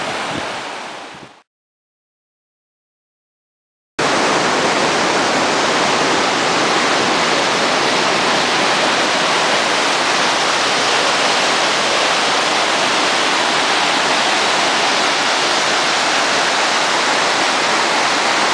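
Mountain stream rushing and splashing down a whitewater cascade over rock ledges, a steady loud rush. It fades out about a second in, drops to dead silence for a couple of seconds, then cuts back in abruptly at full level.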